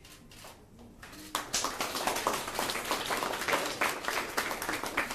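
People in the room applauding, starting about a second and a half in and going on steadily.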